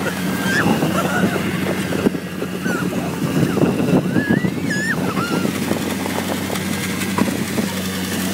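Steady engine drone from a small vehicle towing a sled over snow, with the sled scraping and hissing across the snow and a few short high-pitched cries.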